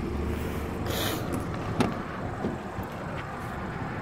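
2011 Hyundai Sonata idling steadily, with two sharp clicks about two seconds in as a rear door is opened.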